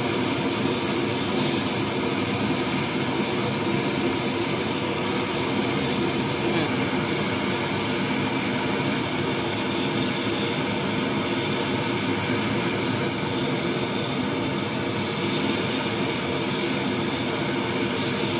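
Ulunthu vadas deep-frying in a kadai of hot oil over a gas burner: a loud, steady sizzle and roar that neither rises nor falls.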